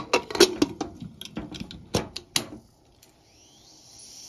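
Inner lid of a Hawkins pressure cooker being fitted into the pot and locked in place: a quick run of sharp metal clinks and knocks for about two and a half seconds, then a faint hiss near the end.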